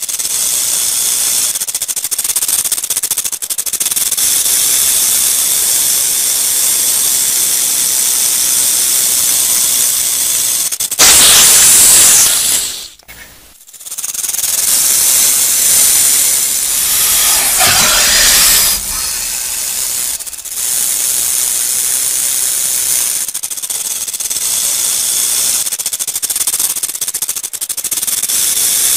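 Rattlesnake shaking its tail rattle: a continuous high-pitched buzzing hiss. It swells louder about eleven seconds in, drops away briefly a couple of seconds later, then carries on steadily.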